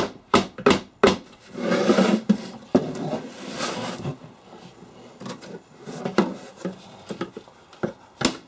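A hammer tapping lightly on the wooden back panel of an antique tool chest to knock it loose: a quick run of sharp knocks in the first second, a scraping rub of wood between about one and four seconds in, then a few more scattered taps.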